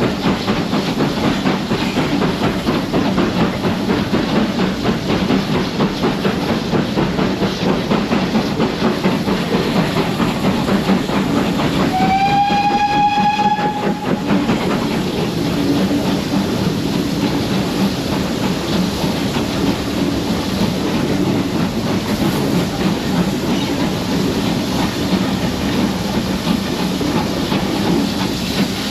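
Two steam locomotives, GWR Manor 7812 and small prairie tank 5521, working hard up a gradient: a steady dense chuffing and train running noise throughout. There is one steam whistle blast of about two seconds near the middle.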